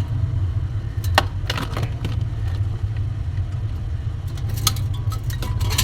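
Steady low mechanical rumble, with scattered small clicks and taps of plastic and metal parts being handled.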